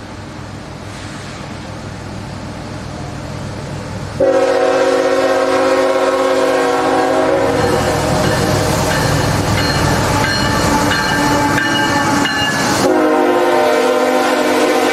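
CSX coal train approaching and passing: the diesel locomotives' rumble builds, then the multi-note air horn blows a long blast about four seconds in and again near the end, with the locomotives and loaded coal hoppers rumbling past on the rails between the blasts.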